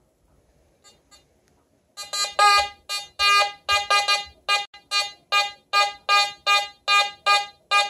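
Nokta Fors Core metal detector sounding a rapid series of short electronic beeps, about two to three a second, starting about two seconds in, as a silver ring is swept over its coil. The beeps signal a high-conductivity target, reading 91 to 94 on the detector's target ID scale.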